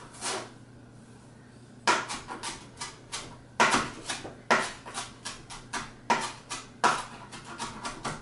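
A knife chopping fresh cilantro on a cutting board: rapid blade knocks against the board, about four or five a second, starting about two seconds in and coming in short runs with brief pauses.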